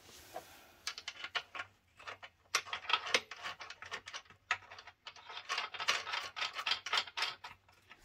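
Irregular runs of sharp metallic clicks, rattles and scrapes from hands handling scooter parts and tools while refitting an electric scooter's wheel. The sound is sparse for the first two seconds or so, then comes in dense clusters.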